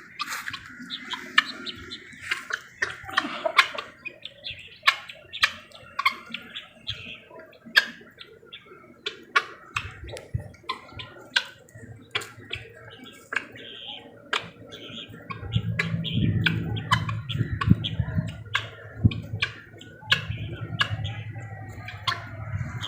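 Mixed flock of pigeons, chakor partridges, hens and peafowl calling, with many short chirps and sharp clicks throughout. A low, pulsing, throaty sound comes in about two-thirds of the way through.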